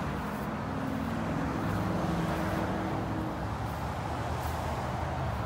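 Steady road traffic noise, with a vehicle engine hum for the first three seconds or so.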